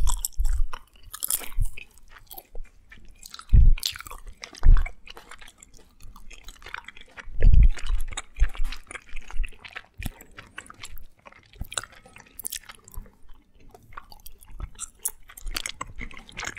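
Close-miked chewing of candy: irregular crisp crunches, with several louder bites in the first half.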